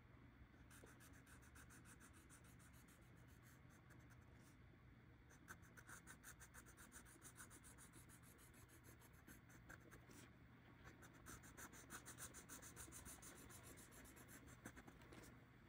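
Faint, rapid back-and-forth scratching of a felt-tip Sharpie marker colouring in on a paper card, in three runs with two short pauses, about four and ten seconds in.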